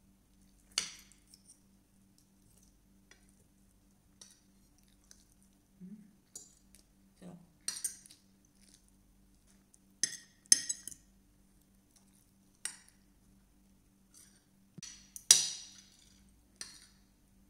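Spoon and fork clinking and scraping against a plate while eating, in scattered separate strokes, the loudest about three-quarters of the way through. A faint steady hum sits underneath.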